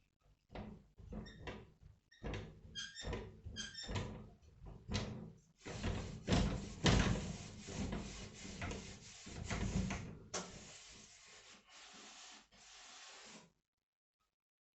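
Hand-work noises: irregular knocks and clatter, then a run of rasping, scraping strokes, like sawing or filing, that stops suddenly.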